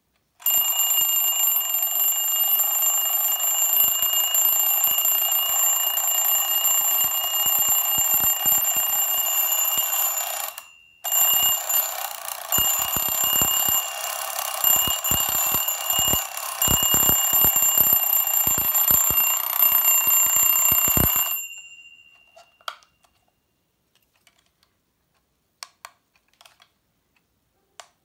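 Twin-bell alarm clock ringing: its hammer strikes rapidly between the two metal bells. The ringing stops briefly about ten seconds in, starts again and runs more unevenly for about ten more seconds, then cuts off, leaving the bell tone to die away, followed by a few faint clicks.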